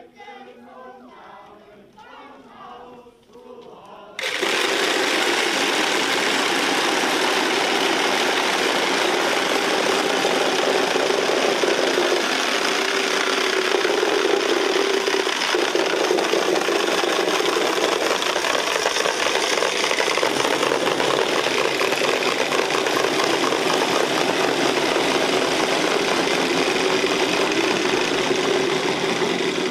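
Faint singing, then about four seconds in the loud, continuous clatter of many wooden Easter rattles (Klappern) being worked together starts abruptly: a dense, rapid stream of clacks that keeps going.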